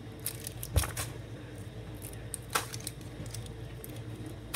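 Plastic wrapper of a fun-size Snickers Peanut Butter bar being handled, with sparse crinkles and two sharp clicks. The first click, about a second in, comes with a dull thump and is the loudest sound; the second comes about halfway through. A low steady hum runs underneath.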